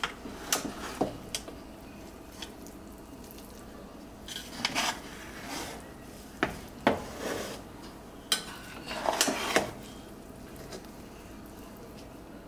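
Cookware and utensils being handled: a few light clinks and knocks in the first second or so, then several short scrapes and rustles between about four and ten seconds in, as an oven dish of chicken pulao is dealt with.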